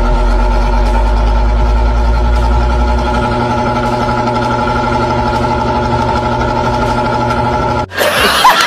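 A loud, steady droning hum with many overtones; its deepest bass drops away about three seconds in. It cuts off suddenly near the end, and a man's laughter follows.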